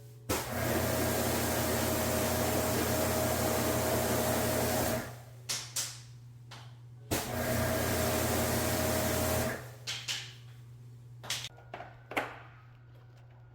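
High-pressure washer spraying in two bursts, the first about five seconds long and the second about two, each a loud hiss with a steady whine from the pump, starting and stopping as the trigger is squeezed and let go. Short knocks and clicks follow near the end.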